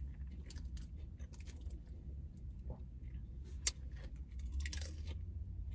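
A plastic fork clicking and scraping against a clear plastic salad bowl as lettuce is picked up, then crisp lettuce crunching as a forkful is bitten and chewed near the end.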